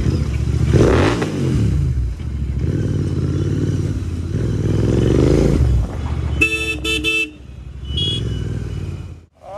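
Royal Enfield Continental GT 650's parallel-twin engine with Red Rooster aftermarket exhausts, revved briefly about a second in and running as the bike rides off. A vehicle horn honks twice about two-thirds of the way through, and the sound cuts off sharply just before the end.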